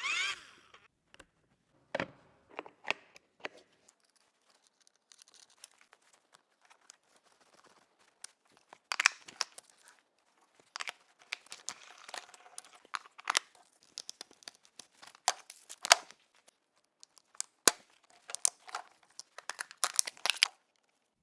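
Scattered clicks and short bursts of rustling, crinkling and tearing, like parts or material being handled, with quiet gaps between them.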